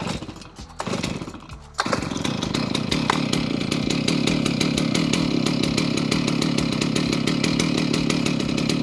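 A couple of short bursts, then a two-stroke chainsaw engine starts about two seconds in and runs steadily.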